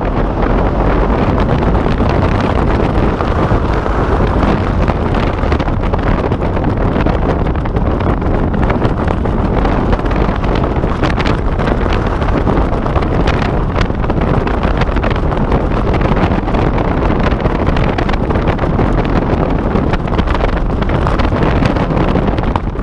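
Loud, steady wind rushing over an action camera's microphone during a tandem parachute descent under an open canopy.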